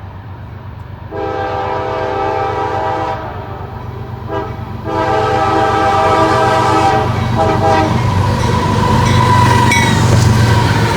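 Diesel freight locomotive sounding its multi-chime air horn: a long blast, a short toot, then another long blast. After that the engine's low rumble and the wheel and rail noise grow louder as the locomotive comes alongside at slow speed.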